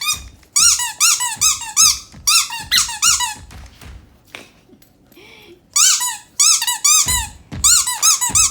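Squeaky dog toy squeezed over and over in quick runs of high squeaks, each rising and falling in pitch, about four to five a second. The squeaks stop for a couple of seconds around the middle, then start again.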